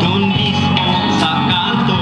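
Music: a song with singing and guitar, playing at an even level.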